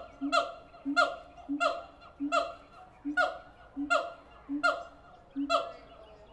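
Siamang gibbons calling in a rhythmic series: each call is a short deep boom from the inflated throat sac followed at once by a loud, ringing bark, repeated about nine times at roughly one and a half per second.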